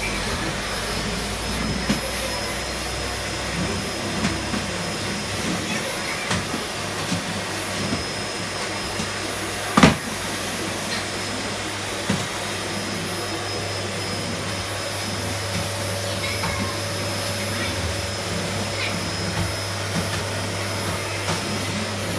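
Vacuum cleaner running steadily, with a few light knocks and one sharp knock about ten seconds in.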